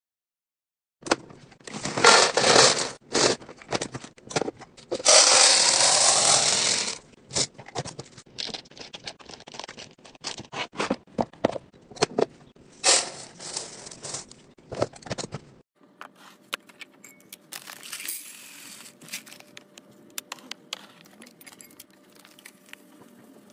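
Hands handling a clear plastic organizer bin: rapid crinkling, scraping and tapping of plastic, with a longer, louder rustle about five seconds in. After a sudden cut about two-thirds through, quieter light clinks and taps of glass canisters with wooden lids over a faint steady hum.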